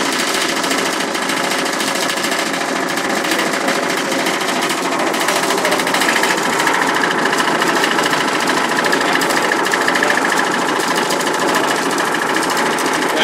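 Vibration test rig shaking a Geopal GJ-03R gas monitor's sheet-metal cabinet: a loud, steady, fast buzzing rattle.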